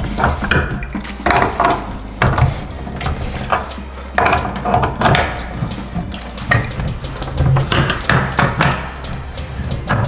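Chrome shower valve fittings clinking and rattling as they are handled and unscrewed from the valve body, in a run of irregular short metallic knocks.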